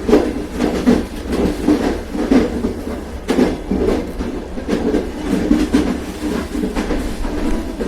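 Train running on rails: a steady rumble with repeated clickety-clack knocks of the wheels passing over rail joints, at uneven intervals.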